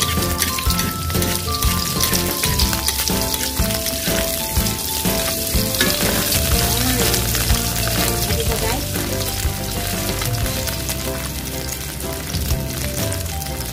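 Food sizzling as it fries in hot oil in a pan, with background music playing a melody over it.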